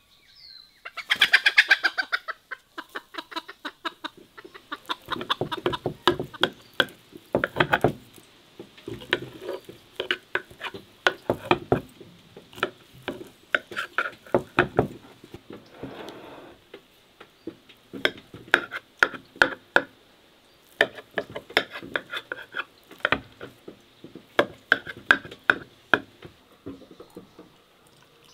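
Chickens clucking, with a loud squawk about a second in, over many short sharp clicks and taps of a knife and tableware in quick clusters.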